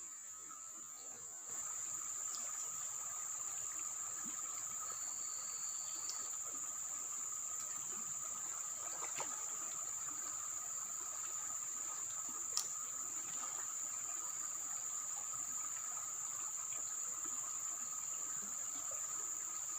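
Insects chirring steadily in a continuous high-pitched drone that gets louder about a second and a half in, with one sharp click about halfway through.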